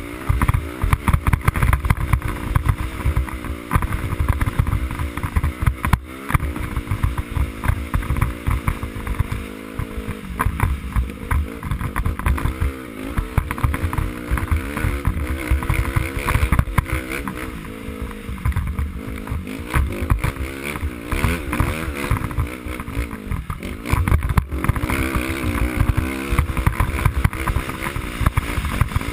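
Dirt bike engine being ridden, its pitch rising and falling as the throttle is worked on and off, heard close up from a helmet-mounted camera.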